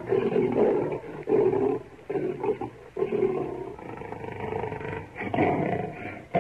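Lion roaring: a series of about five deep, loud calls, each under a second long and roughly a second apart.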